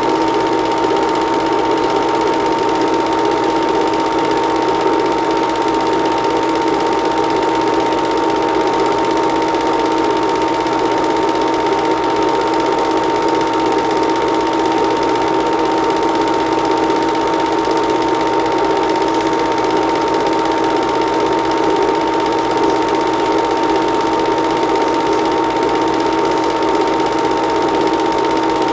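Film projector running: a steady mechanical whirr with a fast, even clatter and a constant two-note hum.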